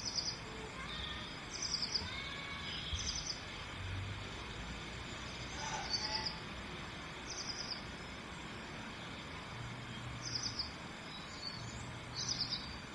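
Birds chirping: short, high, quick trills repeated every one to three seconds, with a few fainter gliding calls between them, over quiet outdoor background noise.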